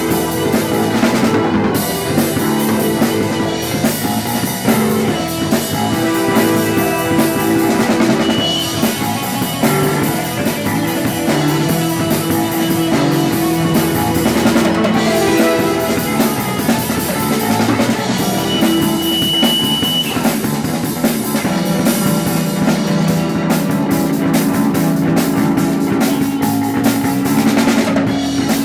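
Instrumental rock band jam: a drum kit beat under electric guitar notes held out for several seconds at a time, sustained with an EBow.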